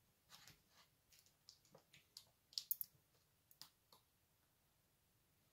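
Faint scattered clicks and light taps of handling, a quick cluster of them a little before the middle, then near silence.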